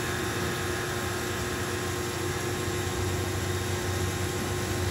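CNC milling machine's end mill cutting a finishing pass along a steel knife-blade bevel under flood coolant. The cut is steady and even, with no chatter: a held whine over a constant wash of cutting and coolant-spray noise.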